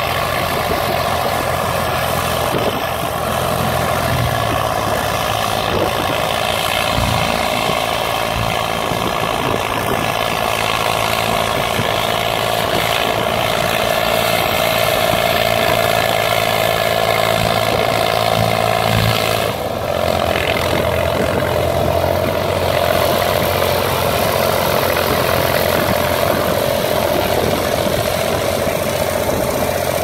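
Ford farm tractor engines running steadily under load, pulling mounted ploughs through the soil. There is a brief break in the sound about two-thirds of the way through.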